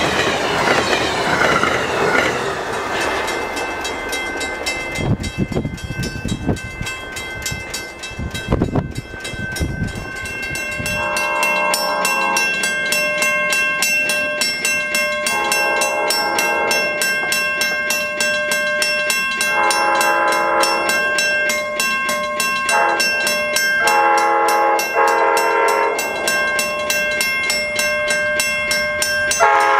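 An Amtrak train rushing past at speed, its noise dying away over the first few seconds. Then an approaching Amtrak train sounds its horn in repeated long blasts with one short one, the long, long, short, long grade-crossing signal, and starts blowing again at the very end.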